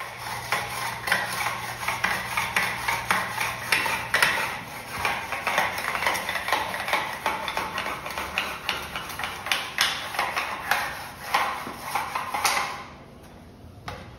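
Stiff-bristled, long-handled scrub brush scrubbing tile grout along the base of a wall, rapid scratchy back-and-forth strokes that stop about a second before the end.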